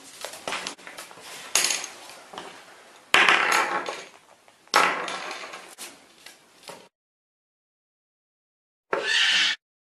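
Knocking and clattering of hard objects on a table as a Goffin's cockatoo works at a wood-and-acrylic puzzle box, with louder knocks about one and a half, three and four and a half seconds in, and a short noisy burst near the end.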